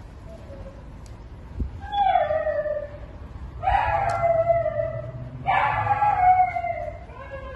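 A husky whining and howling in long cries that fall in pitch: a faint one about half a second in, then three loud ones about two, three and a half, and five and a half seconds in.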